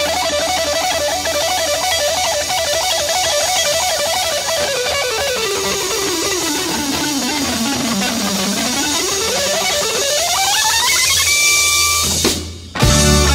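Psychedelic rock music: a dense guitar-led wash under a warbling lead tone that slides down in pitch, then climbs back up and holds. The music briefly drops out about twelve seconds in, and a louder full-band passage starts just before the end.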